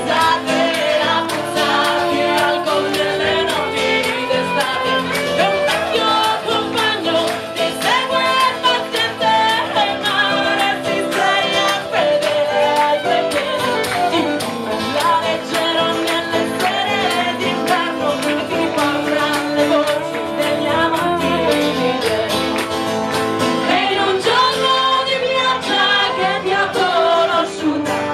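Live folk-rock band music: female voices singing over strummed acoustic guitar and fiddle, with a steady beat.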